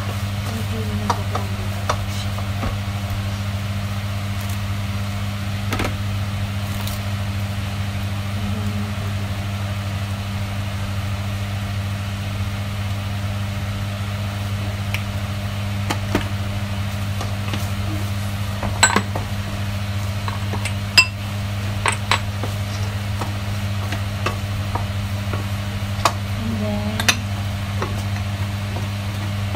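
Chopped chicken sizzling in a nonstick frying pan as a wooden spatula stirs and scrapes it, with scattered sharp taps of the spatula against the pan, the loudest in the second half. A steady low hum runs underneath throughout.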